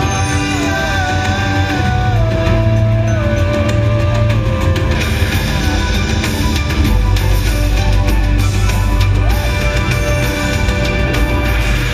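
Loud, dramatic show soundtrack music from a fountain and laser show's loudspeakers, with a heavy bass and a melody line that steps down in pitch over the first few seconds.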